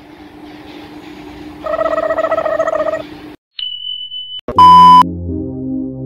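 A steady low hum, with a wavering pitched tone over it for just over a second, cuts off. A thin high beep follows, then a short, very loud electronic beep, and keyboard music starts.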